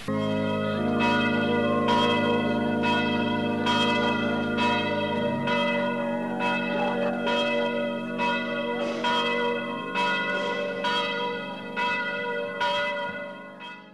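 Several church bells pealing together on an old cassette tape recording: strokes about twice a second over a sustained low hum of overlapping tones. The peal starts abruptly and fades out near the end.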